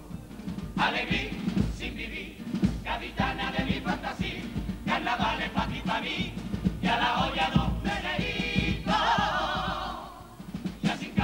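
A Cádiz carnival comparsa's male chorus singing in harmony to guitar and drum accompaniment.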